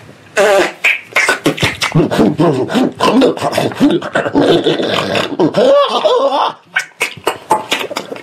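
Sound poetry performed by voice: a made-up, wordless gibberish dialogue between two extraterrestrials, full of mouth clicks, pops and warbling pitch glides.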